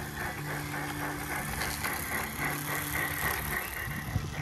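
Small electric motors of a G-scale model locomotive and its homebuilt rotary snow blower running as it clears snow from the track, a steady buzzing whine. A few sharp knocks come near the end.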